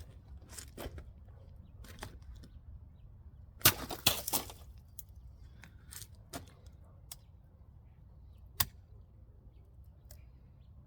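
Leatherman Bolster multitool's knife blade hacking and cutting into hard plastic: scattered sharp clicks, a loud crack followed by a rough scrape about four seconds in, and another sharp snap near the end.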